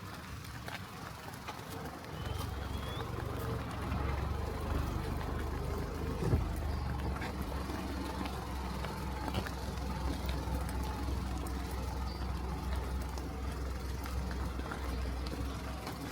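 A car driving: a steady low engine and road rumble that grows louder about two seconds in.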